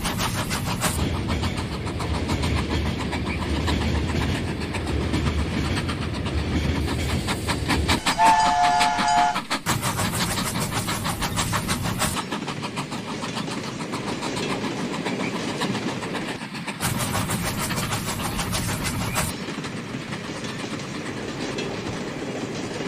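Model train's wheels clicking fast and steadily over the track joints as the string of tank wagons rolls past. About eight seconds in, a two-tone train whistle sounds once for about a second.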